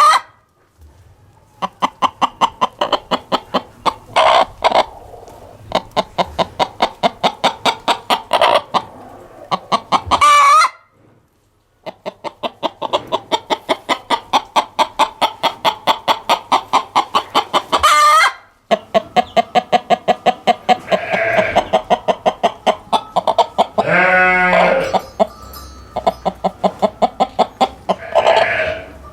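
Chickens clucking in quick runs of about four clucks a second, with several louder squawking calls between. About 24 s in comes a longer rising call that is likely a rooster's crow. The sound stops dead twice, briefly.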